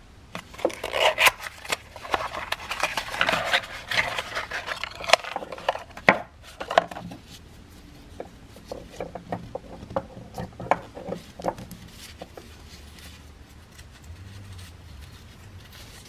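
A new oil pressure switch being taken from its cardboard box and handled in nitrile-gloved hands: a busy run of rustling, scraping and sharp clicks, loudest in the first six seconds, then lighter taps and rubbing as the switch and its ring seal are handled.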